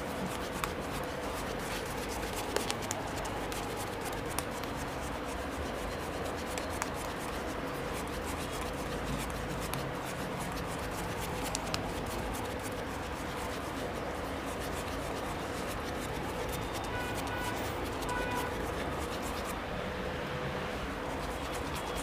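Shaving brush rubbing lather over the skin of a man's neck, a steady close scratchy rubbing with small ticks.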